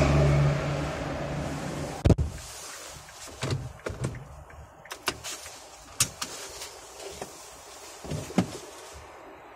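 Inside a stopped car, a low steady hum that ends suddenly with a loud click about two seconds in, then scattered clicks and knocks.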